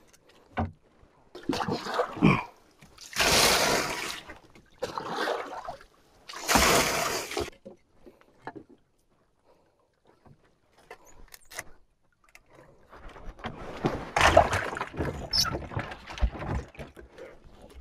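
Handling noise as a large yellowfin tuna is packed into a plastic-lined fish box on a boat: bursts of rustling and scraping, the loudest two about three and six seconds in. A few seconds of near quiet follow in the middle, then a run of rustling with sharp knocks near the end.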